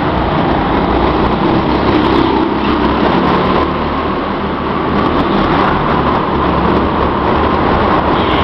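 Several go-kart engines running on the track, making a continuous, steady engine noise as the karts lap past.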